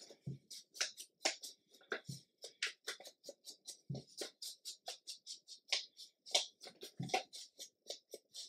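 An ink blending tool rubbed over paper to ink a handmade paper pocket, in quick, short, even strokes about four a second.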